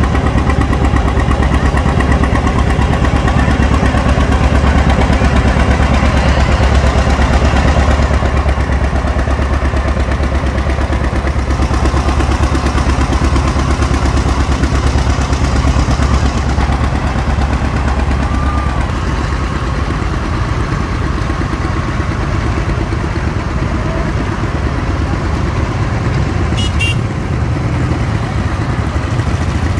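Engines of small motorcycles, scooters and a vintage John Deere tractor running at low speed as they pass, a steady low engine sound that is a little quieter in the second half.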